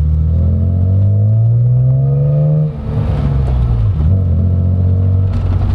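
1998 BMW M Roadster's straight-six engine accelerating hard, its pitch rising steadily for nearly three seconds. It dips briefly at an upshift in the five-speed manual, then pulls again at a lower pitch.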